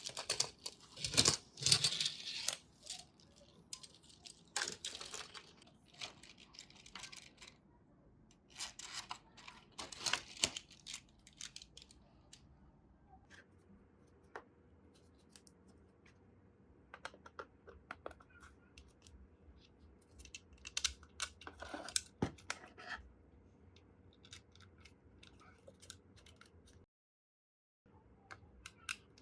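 Hand-work on small parts: bursts of scraping and rustling with scattered sharp clicks, busiest in the first half, then sparser clicks.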